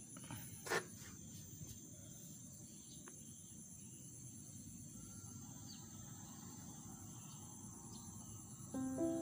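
Faint, steady high-pitched chirring of insects over quiet outdoor background, broken by one sharp tap just under a second in. Background music with plucked, piano-like notes starts near the end.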